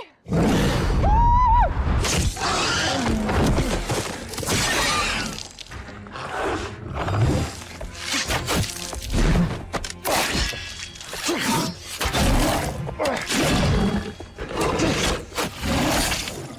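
Film fight-scene sound mix: a run of crashing, breaking impacts over music, with a short pitched cry about a second in.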